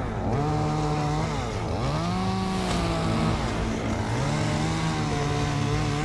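Small engine revving up, holding high for about a second and dropping back, three times over.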